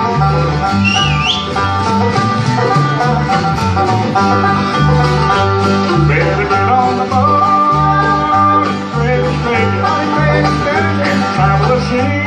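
A bluegrass band playing live on banjo, mandolin, acoustic guitars and upright bass. The bass steps back and forth between two low notes under the picked strings.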